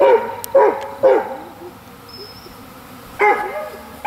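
A dog barking: three short barks in quick succession, then a pause and another bark about three seconds in.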